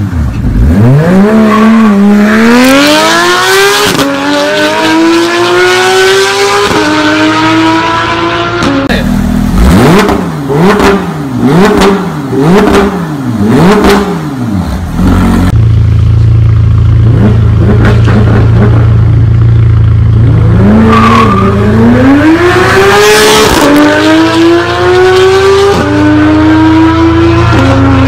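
Porsche 991 GT3 flat-six engine through a Fi Exhaust catless downpipe and valved cat-back system, accelerating hard up through the gears with rising pitch and quick drops at each upshift. About a third of the way in it gives a string of sharp revs blipped up and down, then runs steadily at low revs, and near the end pulls up through the gears again.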